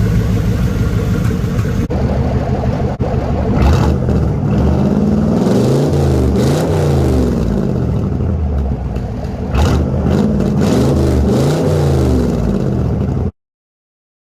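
C4 Corvette V8 running through its exhaust, idling at first and then blipped up and down several times in two bursts of revving. The sound cuts off abruptly near the end.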